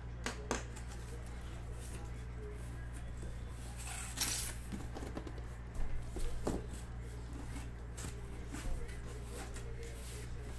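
Cardboard case and boxes being handled and moved, with scattered rustles, a scrape about four seconds in and a few knocks around six seconds, over a steady low hum.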